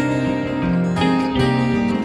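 Background music: a plucked acoustic guitar melody.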